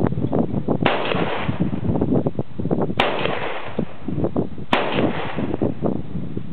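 Three gunshots about two seconds apart, each sharp crack trailing off in a short echo, over an uneven background rumble.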